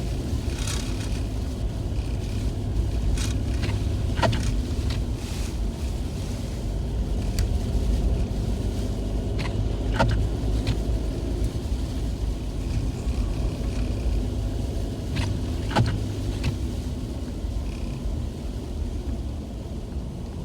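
A car driving slowly in snow, heard from inside the cabin: a steady low road and engine rumble, with scattered light clicks and knocks at uneven intervals.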